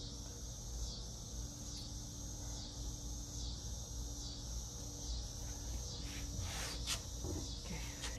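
Insects singing in chorus: a steady high-pitched buzz that swells and dips about once a second.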